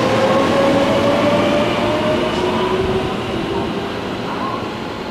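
Electric train pulling out of the station: the motor whine rises steadily in pitch as it accelerates, over wheel and rail rumble that gradually fades as it moves away.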